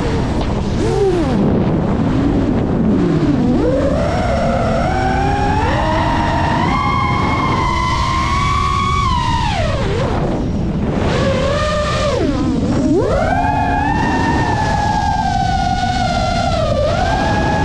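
FPV quadcopter's motors whining, the pitch rising and falling with the throttle over a steady rush of wind. The whine drops steeply and climbs back three times: near the start, about ten seconds in, and near thirteen seconds.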